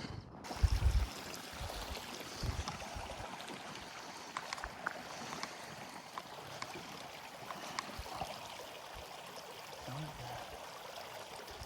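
Small mountain creek flowing over rocks, a steady rushing hiss. A few low thumps in the first few seconds.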